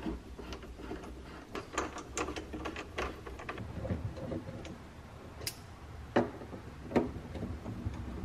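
Hand screwdriver driving a screw into wooden wall framing: a run of small clicks and ticks, thickest in the second and third seconds, then two sharper knocks near the end.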